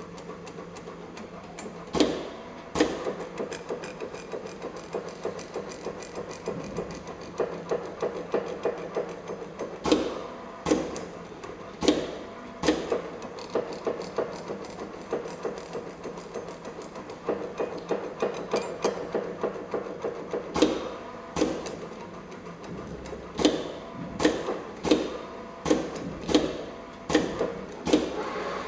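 ZY-510B automatic steel rule bending machine running a bending program: a steady motor hum with frequent, irregular sharp metallic clacks, sometimes several a second, as the bending head forms bend after bend in the steel rule blade.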